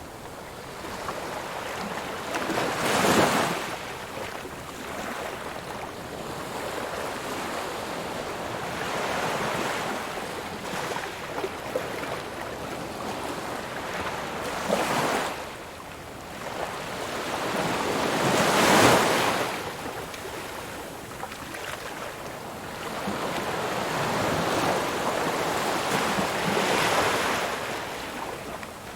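Ocean waves breaking on a shore, one after another: a steady wash of surf that swells as each wave crashes, about four times, loudest near the middle.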